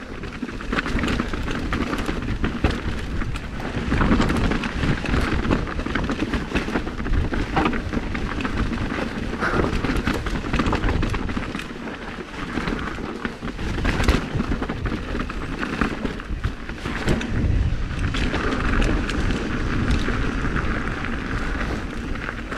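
Mountain bike riding down a rocky trail: tyres crunching over loose rock and the bike clattering, with frequent short knocks and rattles over a steady low rumble of wind on the microphone.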